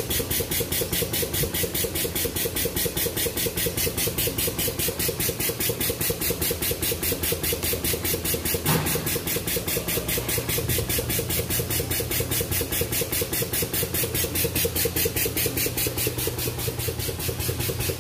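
An engine running steadily with an even pulsing beat of about five a second, and a single short knock about halfway through.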